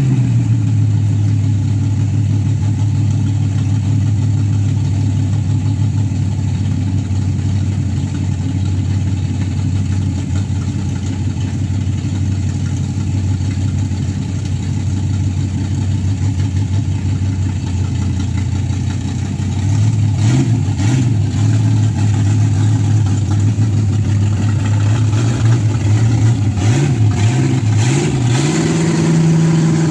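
V8 engine of a Datsun 240z swap car running steadily with a low note, growing louder about two-thirds of the way through, then revving higher in a few steps near the end as the car drives up the street.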